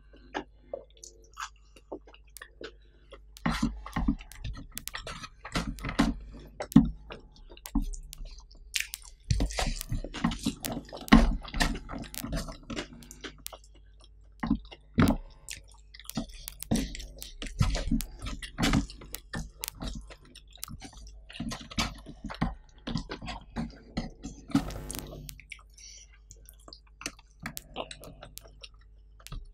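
Mouth sounds of eating by hand: chewing, lip smacks and wet clicks as mouthfuls of rice with squid in sambal are eaten, in an irregular run that thins out near the end.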